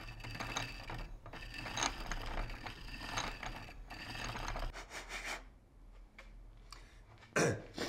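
Hand-cranked piston ring filer grinding the end of a new top piston ring, its abrasive wheel rasping against the ring to open up the end gap. The grinding stops about five seconds in, and a short louder noise follows near the end.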